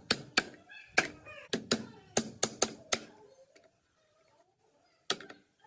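A quick run of sharp taps or knocks, about eight in three seconds, then a pause and one more knock near the end.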